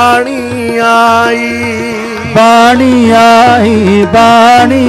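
Sikh Gurbani kirtan music: a harmonium melody with held and gliding notes over tabla accompaniment.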